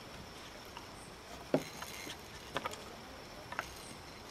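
A few sharp knocks and clicks as a climber crosses suspended wooden beams on a treetop rope course: the loudest, a dull knock, about a second and a half in, a quick double click about a second later, and one more near the end.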